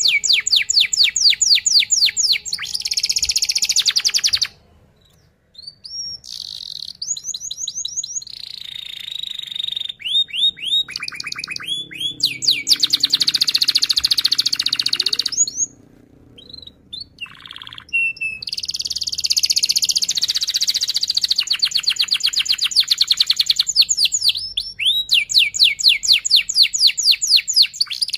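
Domestic canary singing a fast rolling song: long trills of rapidly repeated high notes strung phrase after phrase, breaking off briefly twice.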